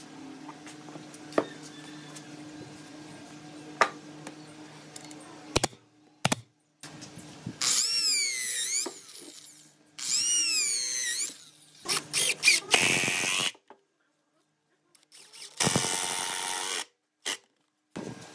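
Makita 6413 electric drill boring into a wooden block. The motor runs in two bursts of about a second and a half each, its whine sweeping up and down in pitch, then in shorter noisy bursts near the end. Before the drilling there is a low steady hum with a few sharp clicks.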